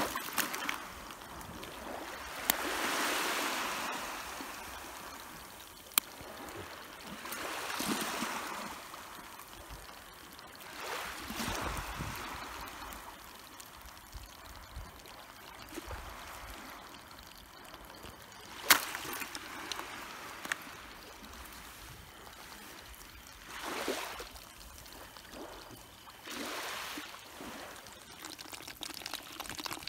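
Shallow water washing and trickling at the shore, swelling and falling away every few seconds, with a few sharp clicks in between.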